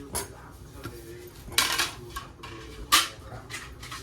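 Plates and dishes clattering as they are handled, with two sharp clatters, about a second and a half in and near the end.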